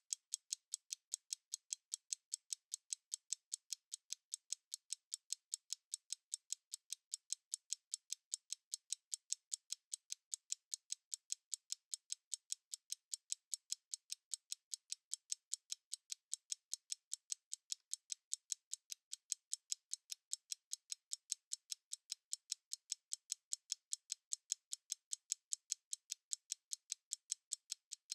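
Stopwatch ticking steadily, about three to four crisp, high ticks a second.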